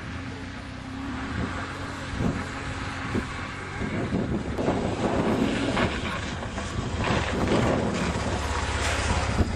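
BMW GS motorcycle engine running. It hums steadily at first, then grows louder and rougher from about four seconds in.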